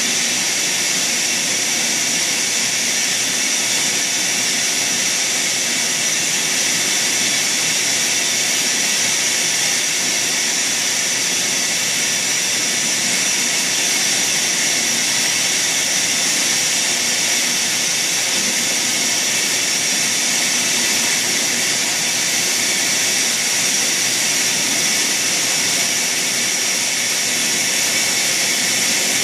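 Industrial blow-moulding machine for plastic drums running, a loud steady machine hiss with a high whine and no breaks.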